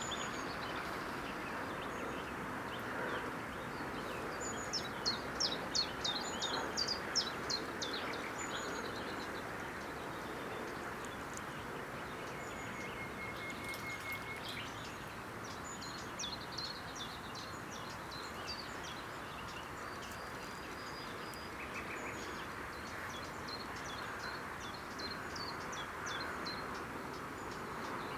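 Small songbirds singing, with runs of quick high chirps and whistled notes over a steady background hiss. The loudest burst of chirping comes about five seconds in, and a longer series follows from about halfway on.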